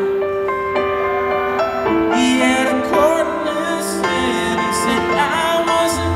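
Live band playing a slow ballad: long held keyboard chords under a male lead vocal that slides between notes.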